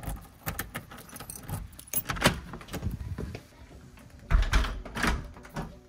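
A bunch of keys jangling and clicking, with a heavy thump about four seconds in.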